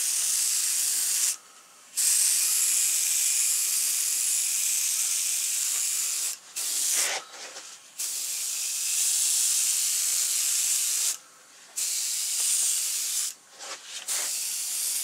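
Airbrush spraying paint with a steady high hiss, stopping briefly several times as the trigger is released and pressed again.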